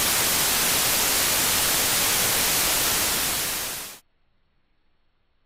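Loud, even television static hiss that cuts off suddenly about four seconds in, leaving near silence.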